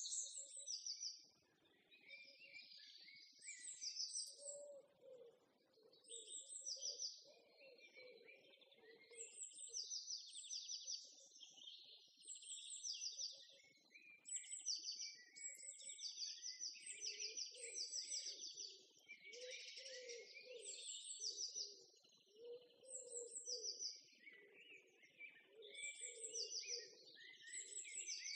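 Birds chirping and singing in quick, repeated high trills, with fainter lower sounds coming and going underneath.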